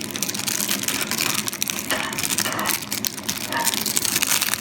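Plastic packaging rustling and crinkling as a small toy is unwrapped: a busy run of quick crackles and rustles.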